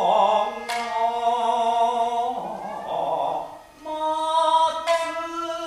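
Jiuta accompaniment: a shamisen struck in sparse single plucks, about a second in and again near the end, each note ringing on, under a voice singing long, wavering held notes.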